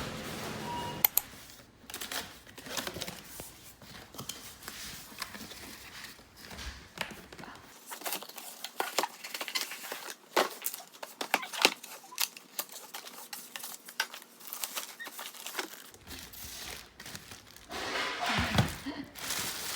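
Packaging being unwrapped by hand: irregular crinkling, tearing and small knocks as an item is taken out of its wrapping.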